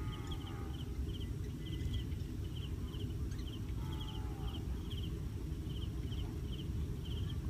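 Outdoor field ambience: a small creature's high chirp, often in pairs, repeats two to three times a second over a low steady rumble. A few faint short falling whistles come in near the start and about four seconds in.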